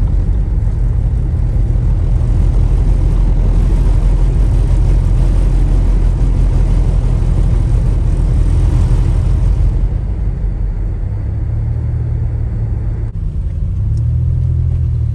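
A motor vehicle running on the road: a steady, loud low rumble with road hiss. About ten seconds in, the hiss drops off and the low rumble carries on.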